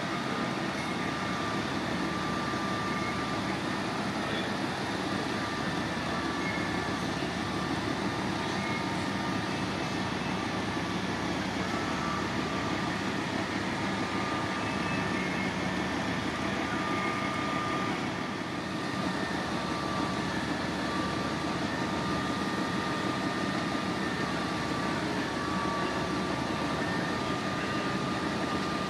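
Fire engines' diesel engines and pumps running steadily, with a faint high whine that comes and goes.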